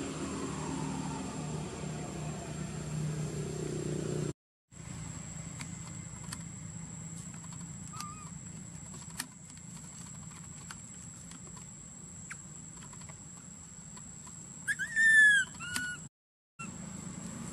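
Macaque forest ground ambience in three clips. First a low hum with falling pitch, like a passing vehicle. Then a steady high whine with scattered clicks. About three-quarters of the way in comes a brief run of loud, high, falling squeals from a macaque.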